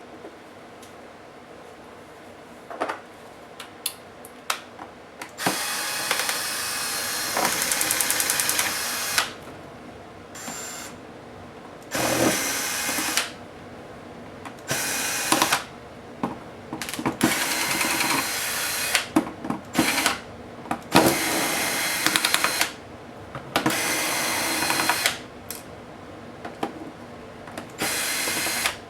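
Electric screwdriver running in repeated bursts of one to a few seconds as it backs screws out of a laptop case, with light clicks and taps of handling between the bursts.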